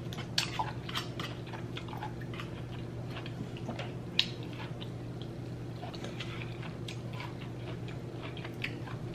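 A person chewing food close to the microphone, with irregular wet mouth clicks and smacks, and one sharper click about four seconds in. A steady low hum runs underneath.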